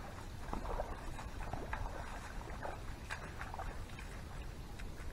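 Irregular splashes and sloshes of a person wading through shallow lake water and stepping onto a weedy bank, over a steady low rumble.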